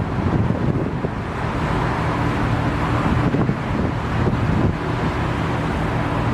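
Strong wind buffeting the microphone, with a steady engine hum underneath that comes in as faint held tones about a second and a half in.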